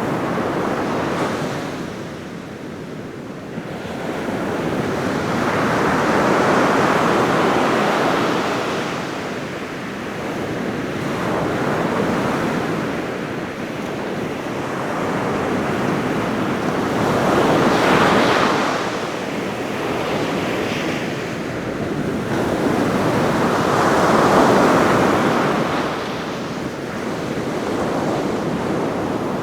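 Ocean surf breaking on a beach: waves crash and wash in as a steady rushing noise that swells and fades about five times, blending together like brown noise.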